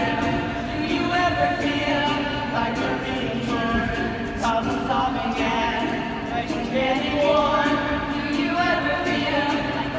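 Music with several voices singing together, held notes that shift in pitch, and faint short clicks in the background.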